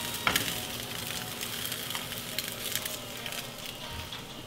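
Eggs frying in coconut oil in a small pan, a steady sizzle with fine crackle. A short click comes just after the start.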